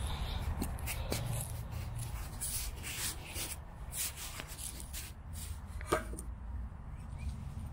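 Wind rumbling on a small handheld camera's microphone, with scattered soft rustles and clicks and one sharper click about six seconds in.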